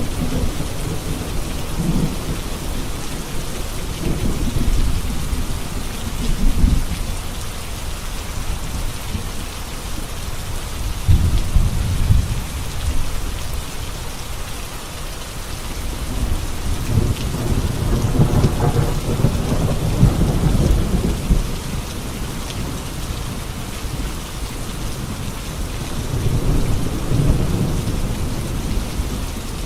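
Heavy rain falling on a road, a steady hiss, with low rumbles of thunder swelling and fading several times, the strongest about 11 s and 18–21 s in.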